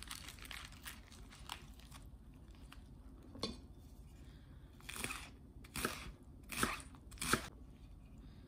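Iceberg lettuce leaves crinkling as they are rolled by hand, then a kitchen knife slicing through the rolled lettuce onto a wooden cutting board: five crisp crunches, the last four about a second apart.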